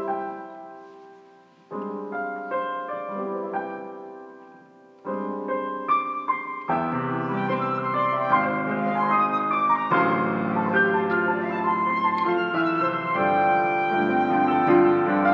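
Piano introduction played on a digital stage keyboard, heard through the hall's speakers: three held chords that each ring out and fade, then, about seven seconds in, steady flowing playing that grows fuller, leading into the choral song.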